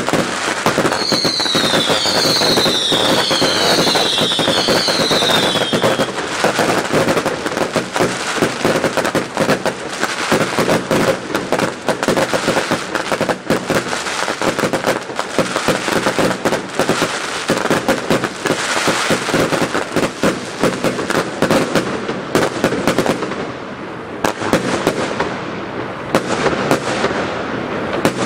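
Fireworks barrage going off at close range: a dense, continuous crackle of pops and bangs, with a few falling whistles in the first few seconds. It thins out to sparser pops near the end as the display dies down.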